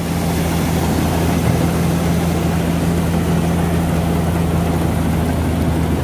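Tractor-powered Chaany-2100 straw reaper running steadily, turning stubble into chopped straw and blowing it through its delivery pipe. A constant low engine hum over an even rushing noise, with no change in speed.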